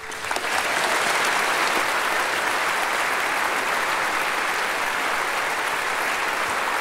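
Audience applauding: a dense crowd of clapping that starts abruptly as the music ends and holds steady.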